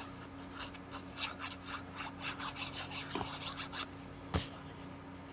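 Glue stick being rubbed quickly back and forth over the back of a paper square, a run of short scratchy strokes about four a second, followed by a single sharp tap about four seconds in.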